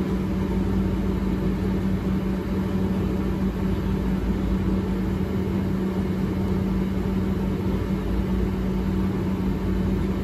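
Steady hum of lab equipment: one constant low tone over a broad low rumble, with no change in pitch or level.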